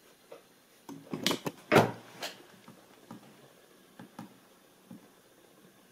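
Irregular knocks and clicks, loudest in a cluster between one and two and a half seconds in, then scattered quieter ticks: a brushless camera gimbal on a defective Alexmos 32-bit controller jerking and shaking.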